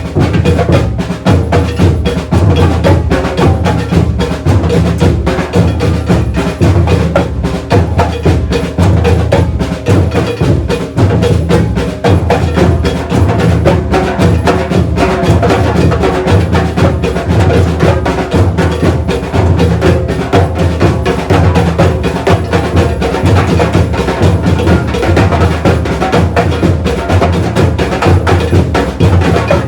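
Batucada percussion ensemble playing a steady rhythm: deep bass drums under dense, fast strokes of the higher drums.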